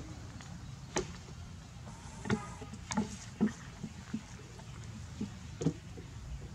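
A scattered series of light knocks and taps on wood, about eight over five seconds, as macaques' hands and feet move on weathered wooden desks, over a steady low background hum.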